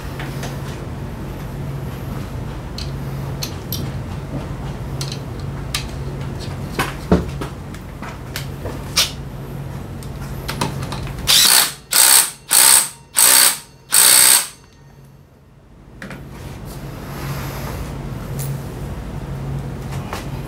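A few scattered tool clinks over a steady low hum, then an impact wrench fired in five quick bursts over about three seconds, running a nut on the scooter's CVT drivetrain.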